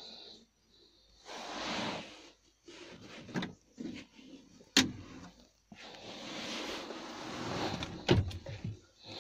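Plastic storage compartment lids in a truck cab's console being opened and handled: rubbing and rustling with sharp clicks about five seconds in and again near eight seconds.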